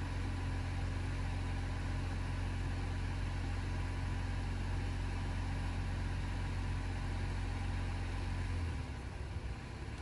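Jeep pickup's engine running steadily at low revs while pulling a tow strap taut; the steady low hum drops away and turns uneven near the end.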